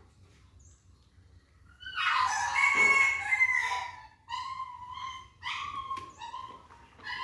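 A rooster crows loudly about two seconds in, followed by a string of short, high whining cries from a shut-in puppy.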